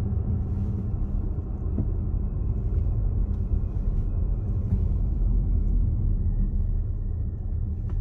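Steady low rumble of a car driving on a paved road, heard from inside the cabin: engine and tyre noise.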